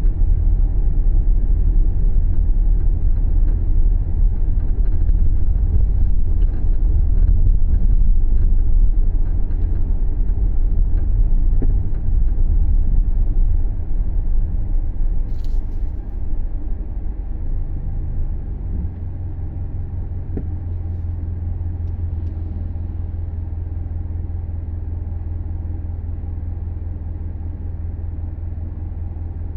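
Subaru Levorg on the move: a loud low rumble of road and engine noise. About two-thirds of the way through it eases into a quieter, steadier hum. There is one brief sharp click around the middle.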